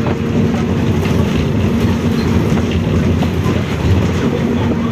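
Volkswagen 17-230 OD bus under way, its rear differential droning loudly: a steady hum over the rumble of engine and road, a little stronger near the end.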